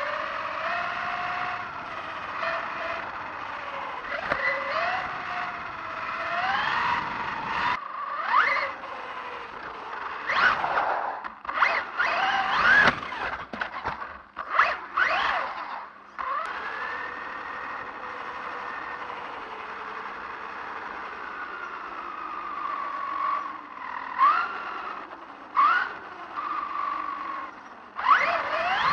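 Electric RC buggy's motor whining, its pitch rising and falling with the throttle, with several short loud spurts of acceleration in the middle of the run and again near the end. The tyres squeal and scrape on smooth concrete.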